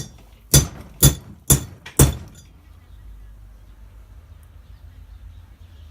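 Five hammer blows on steel about half a second apart, each ringing briefly, knocking a bearing out of a rear differential.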